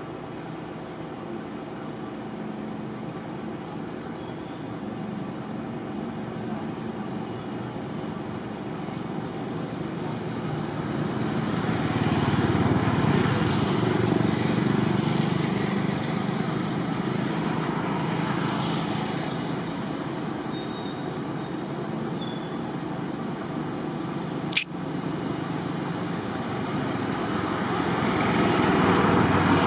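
Road traffic going by: a steady rushing noise that swells twice, about twelve seconds in and again near the end. One sharp click comes near the end.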